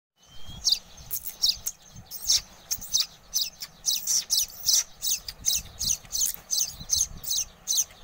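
Baya weaver nestlings begging: a fast, steady run of short, high chirps, each sliding down in pitch, about three or four a second.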